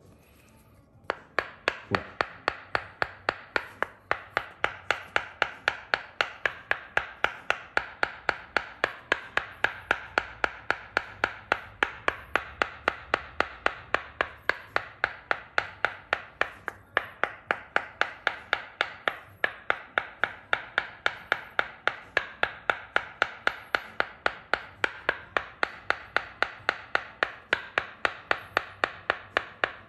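Tok sen massage: a wooden mallet tapping a wooden tool held against the leg in a steady rhythm of sharp knocks, about three a second, starting about a second in.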